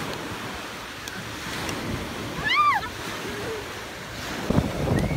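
Small waves washing up on a sandy beach, with one short rising-and-falling cry from a person about two and a half seconds in. Near the end, wind buffets the microphone.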